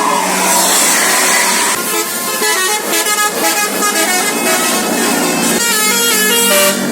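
Multi-tone 'basuri' telolet horn of a CS Trans bus playing a melody, its notes stepping quickly from one pitch to the next over a low steady hum, with a rush of noise in the first two seconds.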